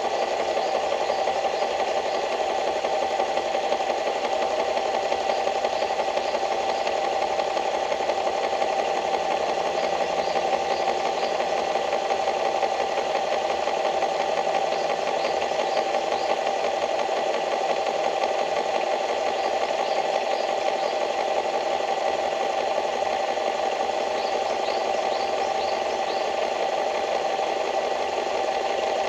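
A small engine running steadily with a fast rattle, without a change in speed. Faint short chirps, like small birds, come and go over it.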